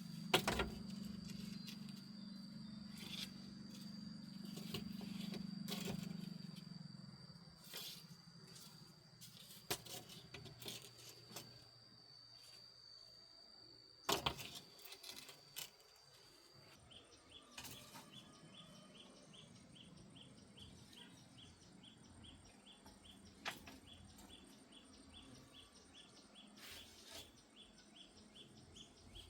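Outdoor ambience: birds chirping and a steady high insect-like tone, then a fast run of short high pulses from a little past the middle. Scattered sharp clicks and knocks run through it, and a low hum fills the first several seconds.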